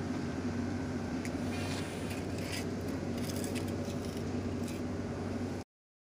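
Steady hum of hoist-furnace machinery with scattered light metallic clinks and rattles from the steel basket of charcoal briquettes hanging on the hoist hook. The sound cuts off suddenly near the end.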